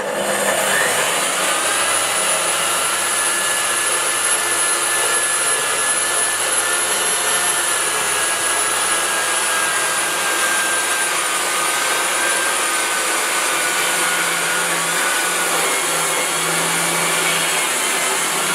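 Cardi Piranha 125 wall chaser with twin 125 mm diamond discs running under load, cutting a groove through an aerated concrete block. It makes a loud, steady, high-pitched whine over a grinding hiss, and the pitch sags slightly as the cut goes on.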